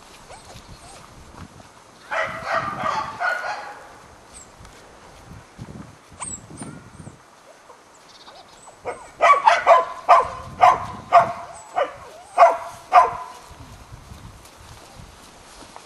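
Dog barking: a burst of barks about two seconds in, then a run of about eight sharp barks in the second half.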